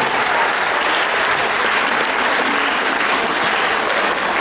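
Large audience and performers applauding steadily in a theatre hall.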